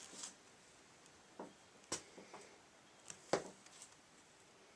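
A few short, light knocks and clicks from parts being handled, the sharpest about three and a half seconds in, against a quiet background.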